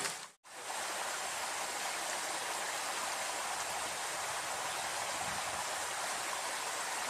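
Steady rush of water flowing in a ditch, after a brief dropout near the start.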